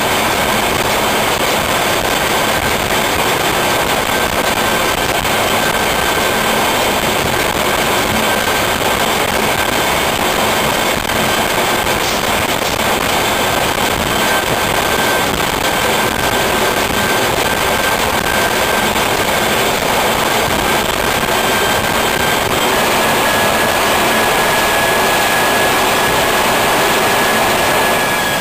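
Loud, steady engine-room noise of a large two-stroke MAN B&W marine diesel main engine running, with a steady high whine over the roar. The noise swells slightly about three-quarters of the way through.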